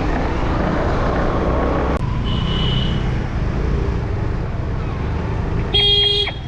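Steady road and traffic rumble heard while riding a scooter, with a short high beep a couple of seconds in and a vehicle horn honking briefly near the end.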